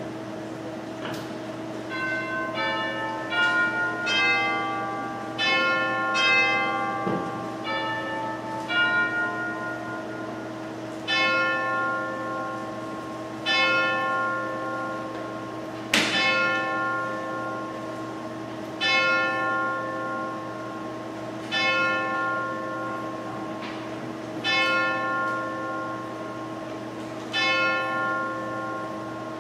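Church bell chimes: a quick run of struck notes, then a bell tolling at a steady pace, about one stroke every two and a half to three seconds, each stroke ringing on as it fades.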